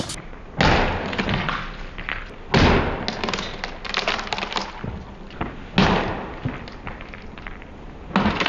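A vintage Windmere table fan being smashed: four heavy thuds against it, two to three seconds apart, each followed by a clattering rattle.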